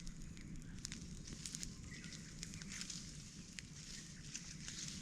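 Wood fire of cut branches crackling, with scattered sharp pops and ticks at irregular intervals over a soft hiss.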